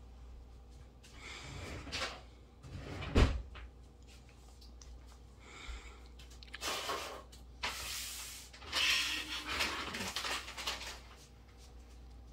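Soft rustling and scuffing against bedding, in several short bursts, with a single sharp knock about three seconds in.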